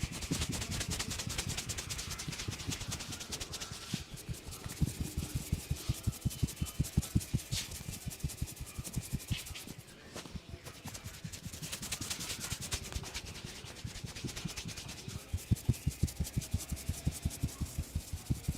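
Hands rubbing and scrubbing oiled hair and scalp in a vigorous head massage: a fast, rhythmic rubbing of about five strokes a second, with a short lull about ten seconds in.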